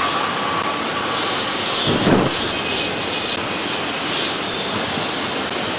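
Double-stack intermodal freight train cars rolling past: a steady rumble and rail noise, with a brief louder thump about two seconds in and a faint high wheel squeal in the middle.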